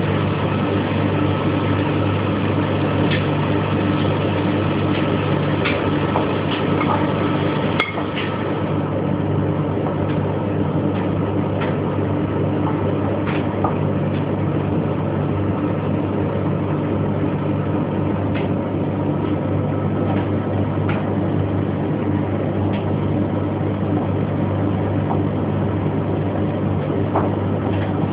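Household laundry machines running: a steady low motor hum from the washing machine and tumble dryer, with scattered light clicks.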